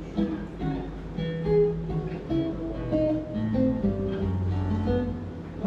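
Acoustic guitar playing the closing bars of a song, a melody of plucked and strummed notes, during a sound check run-through.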